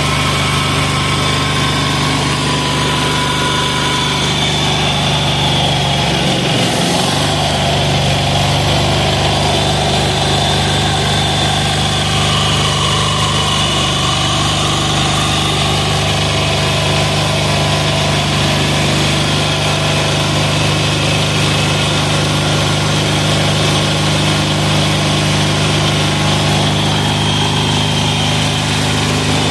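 Single-cylinder air-cooled 186FA diesel engine running steadily with an even, loud chug, its speed dipping briefly and recovering about six or seven seconds in. It is running on a fuel feed of 10W-30 synthetic-blend motor oil in place of diesel.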